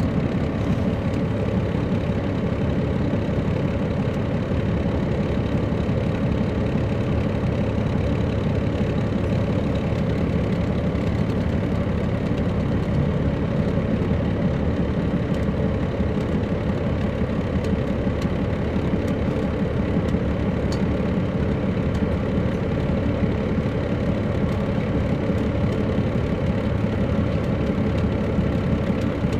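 The Caterpillar C13 ACERT diesel of an MCI D4500CL coach running steadily, heard from aboard the bus, with no revving up or down.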